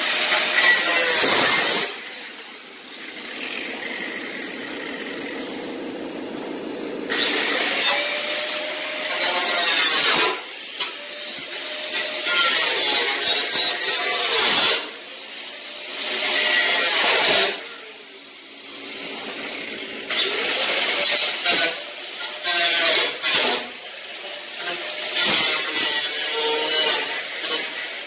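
Power tool cutting a hole in a car hood, run in about six bursts of a couple of seconds each with short pauses, its pitch rising and falling as it spins up and down between cuts.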